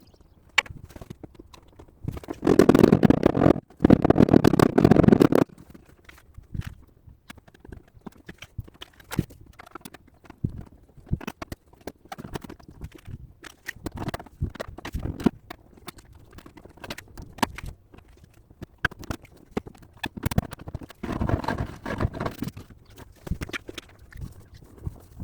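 Hand tools working the dented steel of a car's rear wheel arch panel: irregular knocks and clicks of metal on metal. Two loud rough noisy stretches come a few seconds in, and a weaker one comes near the end.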